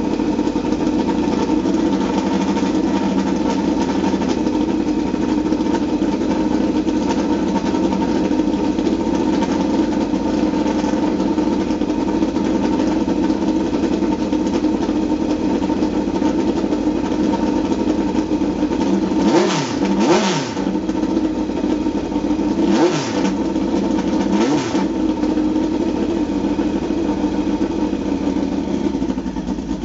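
Small open-wheel race car's engine running at a steady idle, blipped four times in quick succession about two-thirds of the way through.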